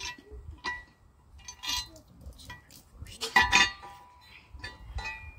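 Painted metal furrower parts clinking and clanking together as they are handled and fitted onto each other. It is a handful of separate metallic knocks with a short ring, the loudest cluster about three and a half seconds in.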